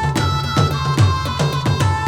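Background music with held melodic notes over a steady hand-drum rhythm.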